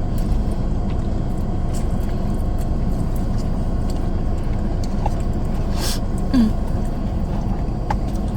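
Steady low rumble of a car's interior with the engine running, with a few faint clicks and one short sharp noise about six seconds in.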